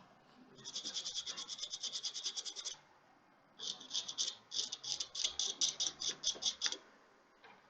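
Rapid back-and-forth scrubbing on a small part of an opened smartwatch, about ten strokes a second, as deposits are cleaned off. It comes in two bouts: a steady one of about two seconds, then a longer, more uneven one after a short pause.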